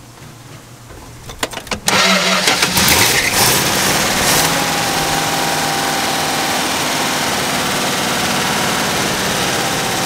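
1964 Dodge's 318 polyhead V8 is turned over by the starter for a few strokes, catches about two seconds in, revs unevenly, then settles into a steady idle: the no-start cured with the ignition timing advanced.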